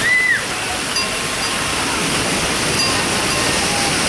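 Steady rushing of moving water, with a short high whistle-like note right at the start.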